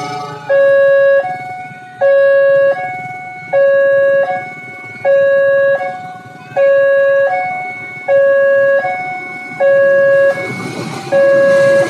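Railway level-crossing warning alarm sounding its repeating two-tone signal, about one cycle every second and a half: a loud, steady lower tone, then a fainter higher tone that fades, warning of an approaching train. Near the end the rumble of the approaching CC 206 diesel-electric locomotive rises beneath it.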